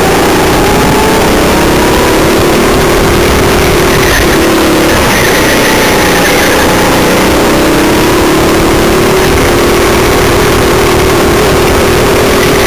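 Go-kart engine heard from onboard, loud and at a nearly constant level, its pitch dipping and climbing again several times as the kart slows and speeds up through the turns.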